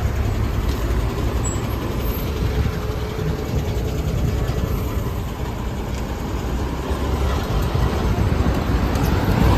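Highway traffic: a steady low rumble of vehicle engines and tyres, with a bus passing close by a few seconds in.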